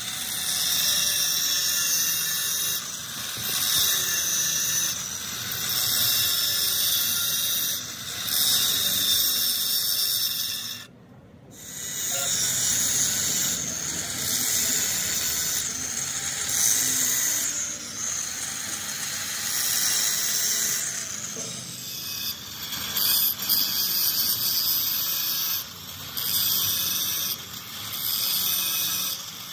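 A high-speed grinder working on the metal of a clutch-finger flywheel: a steady, high-pitched hiss in passes of a few seconds, with a brief break about eleven seconds in.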